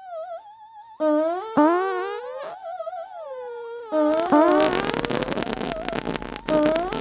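Eerie warbling, gliding tones in a phrase that repeats, theremin-like. About four seconds in, a raspy buzzing noise joins underneath the tones.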